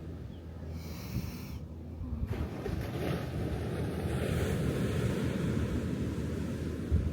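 Atlantic surf washing on the beach, swelling louder about two seconds in, with wind buffeting the microphone as a low rumble.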